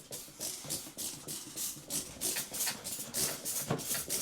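Hand-pumped trigger spray bottle squirting cleaning solution in quick repeated hissing sprays, about three a second.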